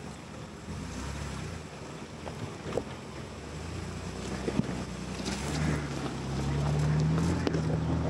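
Ford Bronco's engine pulling slowly under load while rock crawling in four-wheel drive, getting louder from about five seconds in, with occasional sharp knocks from the truck working over the boulders.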